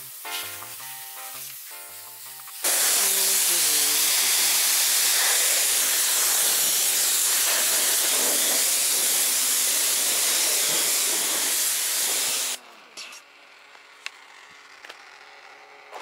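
Pressure-washer jet hissing steadily onto a car's bodywork, rinsing off the soap. It starts suddenly about three seconds in and cuts off abruptly after about ten seconds, with background music underneath.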